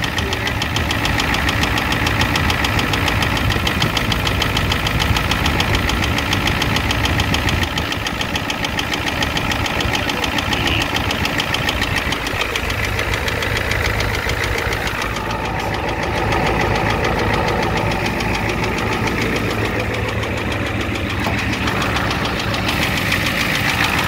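1988 Ford F-250's 7.3L IDI V8 diesel engine running at a steady speed with a rhythmic knock, the engine knocking the owner is chasing alongside a leaking high-pressure fuel line.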